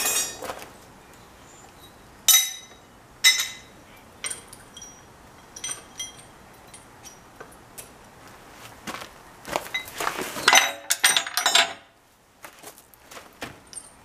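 Loose steel parts clinking and clanking: two sharp ringing clanks about two and three seconds in, then, near the end, a short clatter as pins, nuts, washers and a jack handle are set down on the steel deck of a hitch motorcycle carrier.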